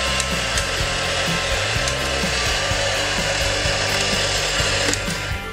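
Plastic ferris-wheel lift of a Tomica Cars parking-garage toy turning, its gears giving a steady grinding rasp that stops shortly before the end.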